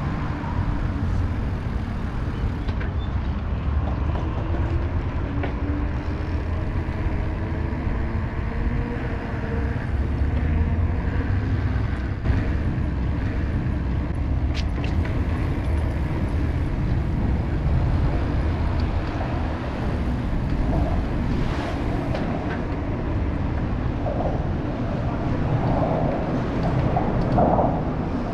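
Steady low rumble of wind buffeting the camera microphone and road noise while riding an electric mountain bike, with passing traffic, and a few brief clicks.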